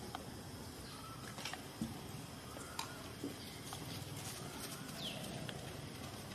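Scattered light clicks and taps over a faint steady background hiss, with a short high squeak falling in pitch about five seconds in.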